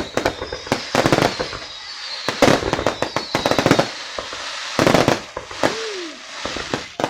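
Aerial fireworks going off in a display: clusters of rapid sharp bangs and crackling about once a second, with a steady hiss between.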